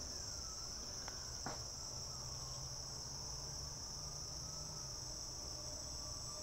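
Steady high-pitched insect chorus, like crickets, with two faint clicks a little over a second in.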